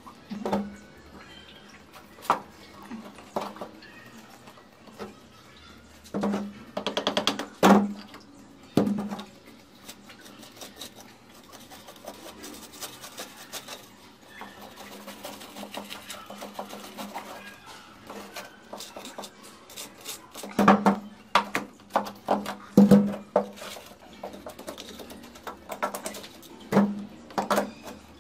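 Quick runs of rapid taps from the end of a wooden stick tamping wet sand-and-cement mortar along the edge of a stainless-steel kitchen sink. Quieter scraping of hands smoothing the mortar comes between the runs.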